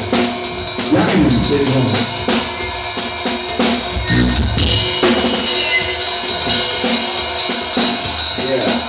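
Drum kit played live in a steady groove: kick drum, snare with rimshots and cymbals, struck many times a second during a sound check.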